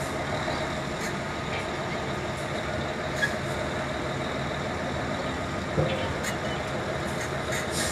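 Steady hum of city traffic, with two brief knocks, about three and six seconds in.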